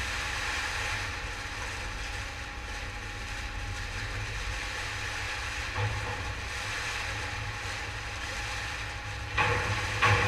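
CK Lyndex CTR82 twin-ram baler running: the steady hum of its 37 kW motor and hydraulic pump. Louder clattering knocks start near the end.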